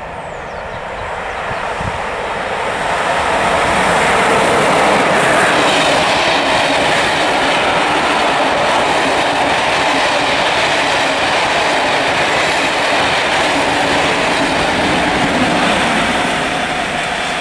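A locomotive-hauled train of West Coast Railways coaches passing close by, with Class 47 diesel 47746 on the rear. The noise of wheels on rail builds over the first few seconds, stays loud and steady as the coaches roll past, and eases a little near the end.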